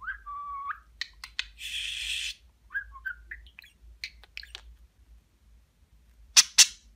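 Budgerigar whistling and chattering: a short whistle that rises and then holds one note, a raspy burst, soft chirps and scattered clicks, then a few loud sharp clicks near the end.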